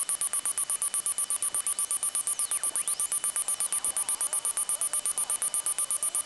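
The model plane's onboard low-battery buzzer beeping rapidly and evenly, about ten short high-pitched beeps a second: it has started beeping instead of buzzing, which the owner takes for a sign that the buzzer is dying.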